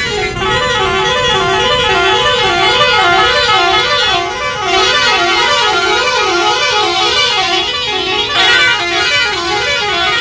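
Truck's musical horn playing a repeating two-note tune, low then high, about one and a half times a second, held without a break.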